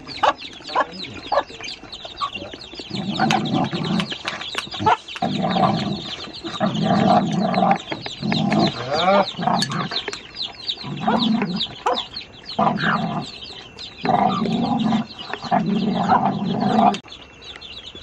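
Chickens clucking in repeated bouts about a second long, over a constant chatter of short, high, falling peeps.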